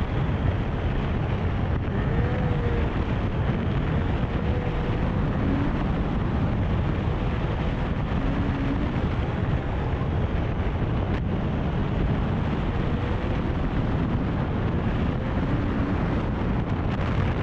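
Steady wind noise buffeting the camera microphone over the low rumble of a car driving slowly, with a faint wavering tone coming and going underneath.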